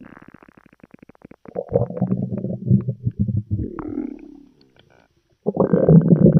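Cartoon stomach gurgle and growl sound effects: a fading run of rapid bubbling pulses, then a rumbling gurgle that dies away, and after a brief gap a louder stomach growl begins near the end.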